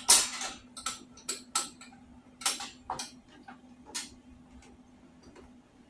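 Metal cart parts and hardware being handled during assembly: a dozen or so irregular sharp clicks and clinks, thicker and louder at first and thinning out after about four seconds, over a faint steady hum.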